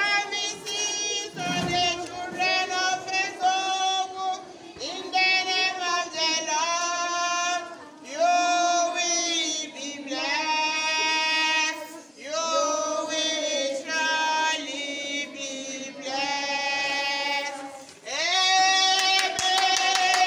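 A large group of schoolchildren singing together in short phrases with brief breaks between them, ending on a long held note.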